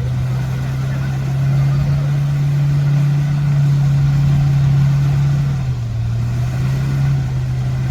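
Off-road vehicle's engine running at a steady pitch, dipping slightly a little under six seconds in.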